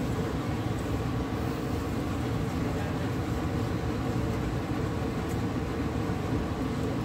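A steady low rushing hum, with no distinct knocks or scrapes standing out.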